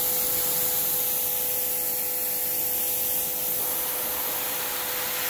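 Sun Joe SPX4600 electric pressure washer spraying a wide fan of water through its 40-degree nozzle onto asphalt: a loud, steady hiss with a steady hum under it.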